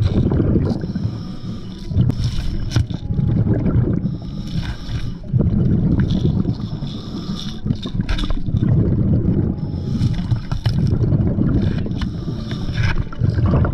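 Scuba breathing heard underwater through a camera housing: a regulator hiss on each breath in and a bubbling rumble of exhaust bubbles on each breath out, repeating every few seconds, with occasional sharp clicks.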